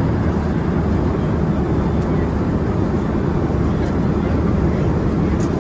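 Steady low rumble of an airliner's cabin noise, even and unbroken.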